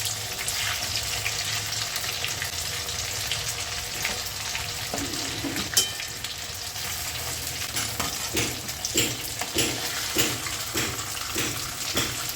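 Soya chaap frying in hot mustard oil in a kadai: a steady sizzle with crackling, a sharp clink about six seconds in, and a run of short knocks in the last few seconds as the pieces are stirred and lifted out.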